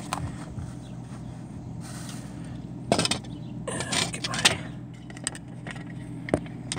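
Knocks, rustles and clatter of a phone camera being handled and propped in place, over a steady low hum. The loudest knocks come about three seconds in and again around four seconds in.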